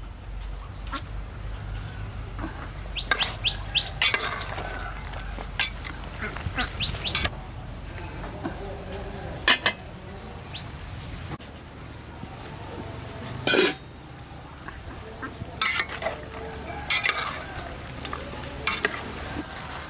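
Scattered clinks, knocks and scrapes of utensils against pots and dishes during cooking, with the loudest knocks about nine and thirteen seconds in.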